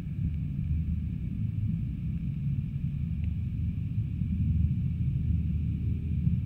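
Steady, muffled low rumble of water moving around a submerged camera, with a faint steady hum higher up.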